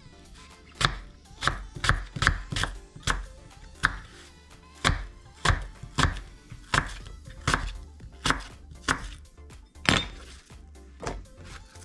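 Kitchen knife chopping an apple on a wooden cutting board: a run of sharp knocks, roughly two a second, starting about a second in.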